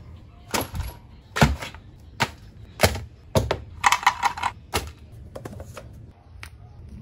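Stationery being set down and handled on a desk: a series of sharp taps and knocks about once a second, with a short rattling clatter about four seconds in as a clear plastic washi tape holder is picked up and shifted.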